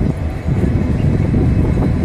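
WDP4B diesel-electric locomotive's 16-cylinder two-stroke EMD engine giving a loud, low rumble as it approaches hauling a passenger express, with wind buffeting the microphone.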